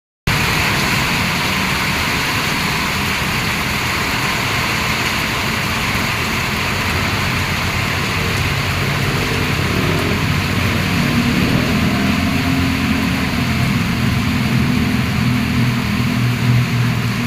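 Heavy rain pouring down steadily in a storm. From about eleven seconds in, a low steady hum joins the rain.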